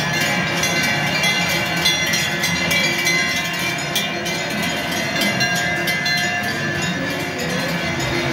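Large cowbells on a herd of cows clanging together as the cows walk past, a dense, unbroken jangle of overlapping metallic tones.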